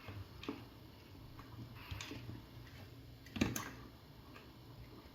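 A few light clicks and taps as small parts and tools are handled while a burnt 3-ampere fuse is swapped, the sharpest tap about three and a half seconds in. A faint steady low hum runs underneath.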